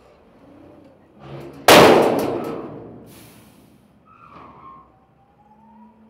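The steel tailgate of a dump truck slams against the tipped bed with one loud metallic clang that rings and dies away, after a few lighter knocks. A faint rising whine follows.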